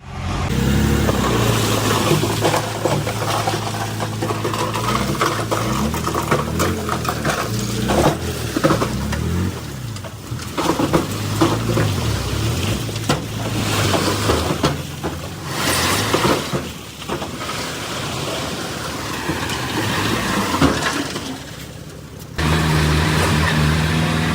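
Diesel engines of heavy earthmoving machinery running and changing speed, with scattered clanks and knocks. The sound changes abruptly about 22 seconds in.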